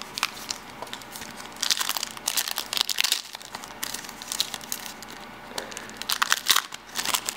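Foil wrapper of a 2017 DiamondKings baseball card pack crinkling as it is torn open by hand, in bursts of crackles about a second and a half in and again near the end.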